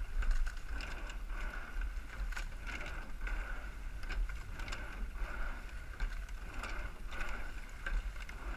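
Racing eight-oared rowing shell under way: water rushing along the hull, with irregular knocks of oars turning in their oarlocks and seats rolling on their slides, over a heavy rumble of wind on the microphone.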